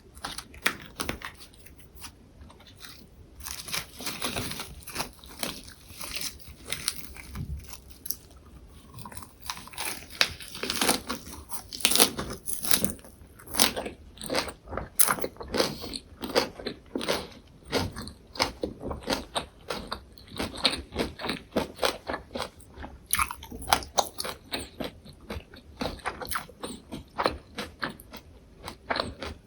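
Close-miked chewing of lettuce and perilla-leaf wraps with soft tofu: wet bites and many crisp, irregular crunches of fresh leaves, sparse for the first few seconds and then dense.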